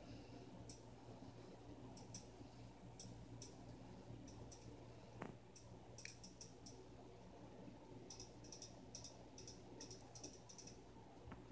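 Near silence: a low steady hum with faint, sharp clicks scattered throughout, coming in quicker clusters near the end.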